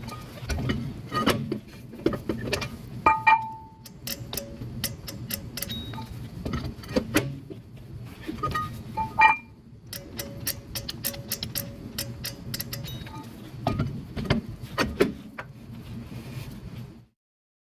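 Metallic clicks and clinks of tools and brake parts being handled, with a few short ringing metal strikes. The sound cuts off abruptly near the end.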